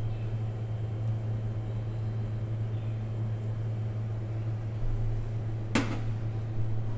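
Steady low machine hum, with one sharp knock near the end.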